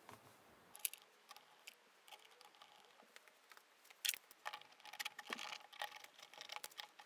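Faint, irregular light clicks and clinks of hand tools and small screws being handled during assembly, with a few isolated clicks about a second in and a busier run in the second half.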